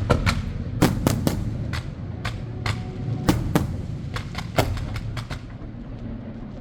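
Fireworks going off in an irregular rapid string of sharp bangs and cracks over a low rumble, the bangs thinning out toward the end.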